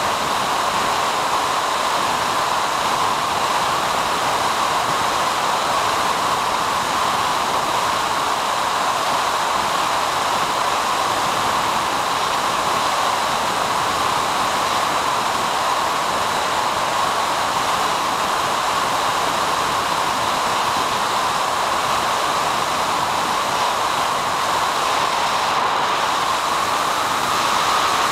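Steady hiss of static from the analog FPV video link's receiver, an even noise with no engine tone in it.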